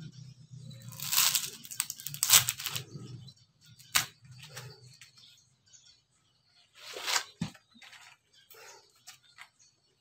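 Dry coconut husk fibres torn away by hand from a sprouting coconut: rough ripping rasps, loudest in the first few seconds, a sharp snap about four seconds in, and another burst of tearing around seven seconds.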